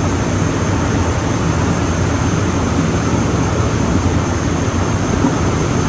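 A ferry under way at speed: a steady low drone from its engines with a thin high whine above it, mixed with the rushing of wind and churning wake water.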